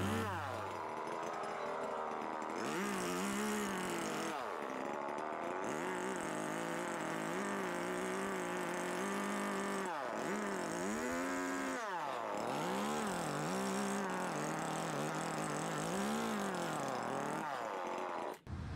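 Echo two-stroke chainsaw carving wood, its engine revving up and down over and over as each cut is made. The sound cuts out briefly near the end.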